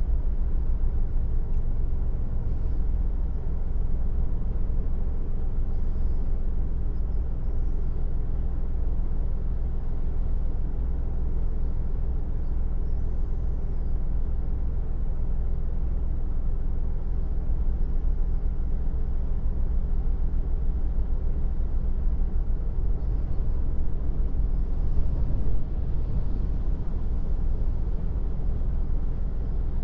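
A car driving at steady speed: an even low rumble of road noise and engine.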